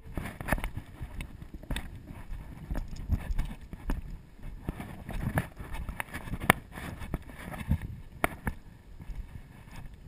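Footsteps on a dirt forest trail, heard through a body-worn camera: irregular knocks and a few sharp clicks over a low rumble of movement noise on the microphone.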